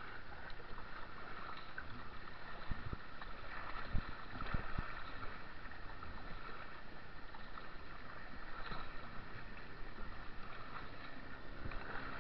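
Water rushing and splashing around a two-person slalom canoe as it is paddled through choppy whitewater, with a few sharp knocks about three to five seconds in.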